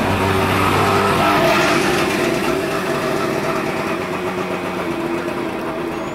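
Small microcar engine running steadily as the little open two-seater passes close by and pulls away, the sound slowly fading.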